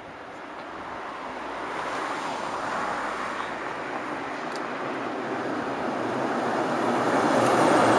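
Tram approaching, its rolling noise growing steadily louder throughout.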